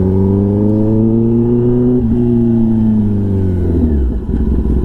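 Kawasaki ZX-10R's inline-four through an SC-Project exhaust, engine note rising gently, breaking briefly about two seconds in, then falling as the bike slows and settling into a low steady note near the end.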